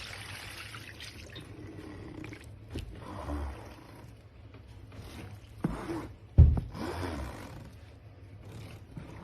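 Liquid trickling and splashing, with a few knocks, the loudest about six and a half seconds in.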